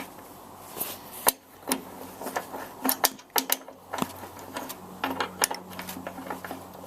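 Facom 40R13 13 mm ratcheting combination spanner being worked back and forth, its ratchet giving irregular sharp clicks with light metal clinks.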